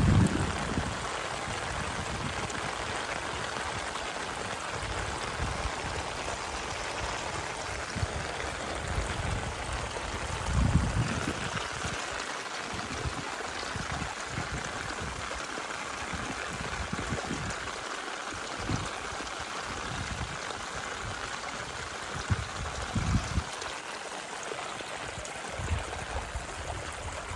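Steady rush of rainwater runoff flowing along a small canal, with a few short low rumbles along the way.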